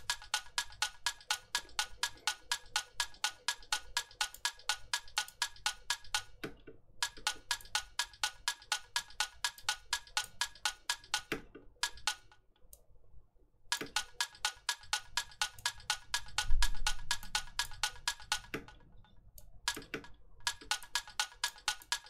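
Electronic tick-tock clock loop built from percussion samples, playing back as sharp, evenly spaced ticks about four to five a second with reverb and a delay effect being dialled in. It stops and restarts a few times, and there is a single low thump about sixteen and a half seconds in.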